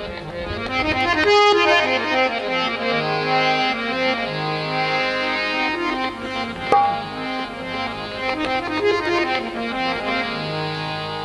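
Harmonium playing an instrumental melody of held, stepping notes over a steady low drone, as an interlude in a devotional bhajan, with a couple of sharp drum strokes.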